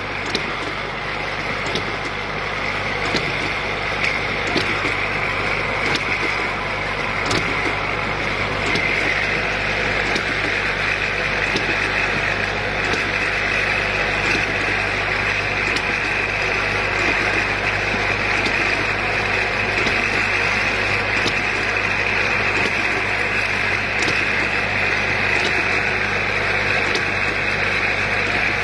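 Automatic bottle-cap assembly machine running: a steady mechanical whir over a constant hum, with faint sharp clicks at an even pace, about one every second and a half.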